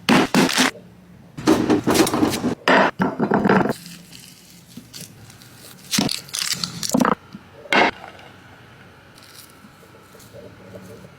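Close-up food sounds: a string of loud, short crackling and scraping bursts in clusters, then a quieter stretch near the end.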